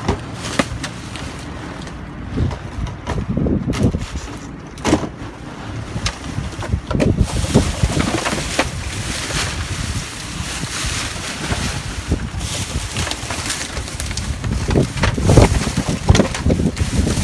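Plastic drink bottles knocking together and plastic bags and wrap rustling as hands dig through a dumpster, with wind rumbling on the microphone. The rustling thickens into a denser hiss about seven seconds in.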